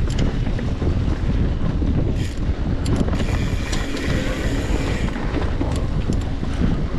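Wind buffeting the microphone of a camera riding along on a bicycle, with scattered clicks and rattles from the bike as it rolls over the trail. The rushing sound grows hissier for a couple of seconds in the middle.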